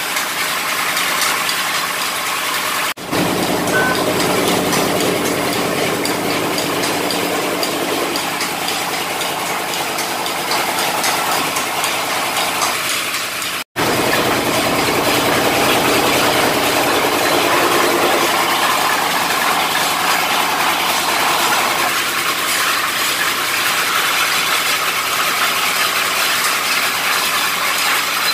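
Engine of a belt-driven borewell drilling rig running steadily at a constant speed, with the mechanical clatter of its pulleys, belts and gearing.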